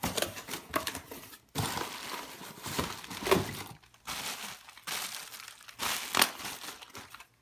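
Packaging crinkling and rustling as a small cardboard box is opened by hand and its wrapping handled, in several bursts with sharp crackles.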